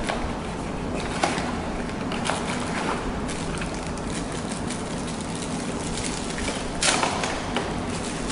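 Cardboard box and a bundled USB cable being handled: scattered light knocks and rustles, the loudest a short rustle about seven seconds in. A steady low background hum runs underneath.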